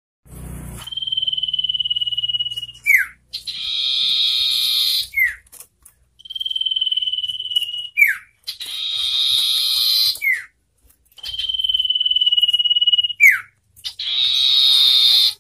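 Common iora calling: a long steady whistle ending in a quick downward slur, then a harsh buzzy chatter. The same call repeats three times, about every five seconds.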